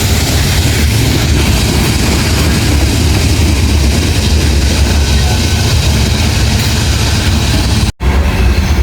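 CSX train passing close by: a steady low rumble with heavy rail and wheel noise, broken by a split-second dropout near the end.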